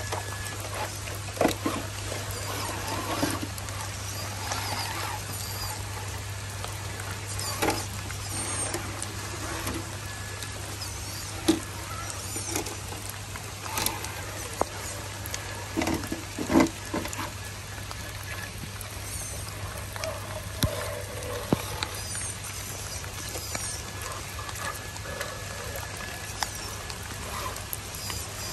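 MST radio-controlled scale crawler climbing wet rock: its small electric motor and gears whine in short spurts, and the tyres and chassis scrabble and knock against the stone. A steady low hum runs underneath.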